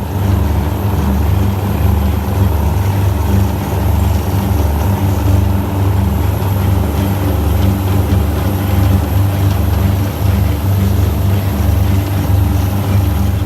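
An engine running steadily: a low, even drone with a faint high whine above it.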